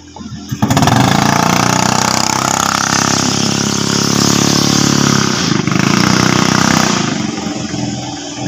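Small inboard engine of an outrigger racing boat catching suddenly about half a second in, then running loud at high revs. It gets quieter near the end.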